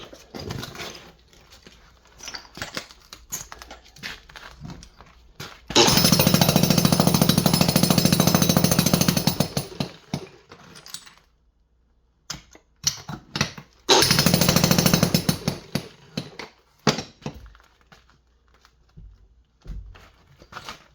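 Hammer drill used as a jackhammer, chiselling out a shower stall's strongly set base. It runs in two main bursts of rapid, even hammering, the first about four seconds long and the second about two, with scattered knocks between.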